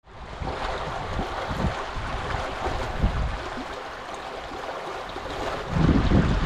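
Floodwater bubbling up out of a submerged street drain and running over the flooded road, a steady rushing of water. Wind buffets the microphone in low gusts, the strongest near the end.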